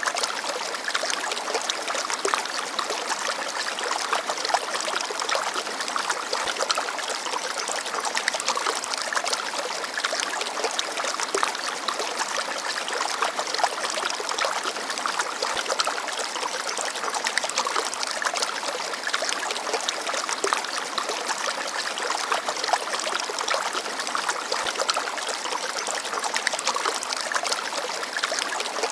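Shallow forest stream babbling over stones: a steady rush of water full of small trickles and splashes.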